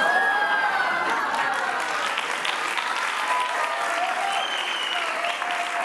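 Studio audience applauding, with a few whoops over the clapping. It starts suddenly just before and holds steady.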